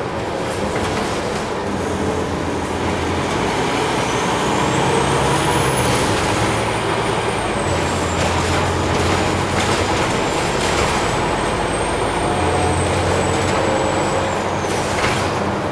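Scania OmniCity bus heard from inside the saloon while under way: a steady engine drone that shifts in pitch a few times, with a thin high whine that rises about four seconds in, holds, and falls away near the end.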